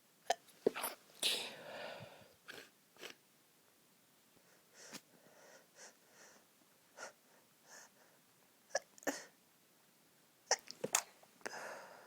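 A woman's stifled sneezes, held in to keep quiet, coming again and again in short sudden bursts with quiet gaps between: a hay-fever sneezing fit.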